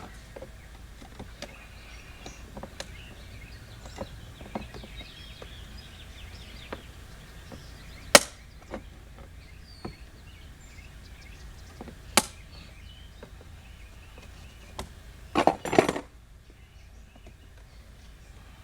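Plastic door-trim clips being pried loose on a car door panel: scattered small clicks and handling knocks, two sharp snaps about eight and twelve seconds in as clips pop free, and a short run of louder knocks near the end.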